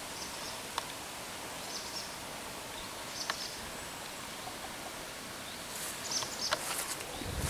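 Steady outdoor background hiss with a few short, high chirps. Footsteps on a rough path start up near the end.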